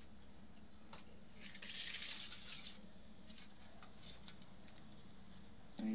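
Faint kitchen handling sounds of stainless steel plates and a spoon while bitter gourds are stuffed with masala: a few light clicks and a short scraping hiss about two seconds in, over a low steady hum.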